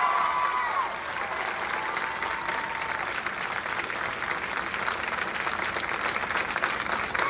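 Crowd applauding steadily after a marching band's performance, with a few scattered cheers and whoops.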